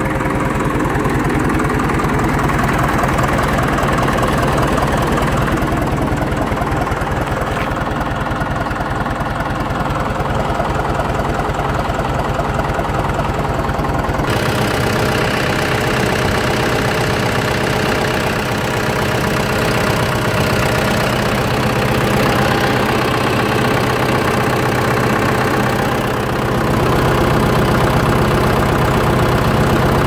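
John Deere 450 crawler loader's diesel engine idling steadily, close to the microphone. Its tone changes at about fourteen seconds in, and it grows a little louder near the end.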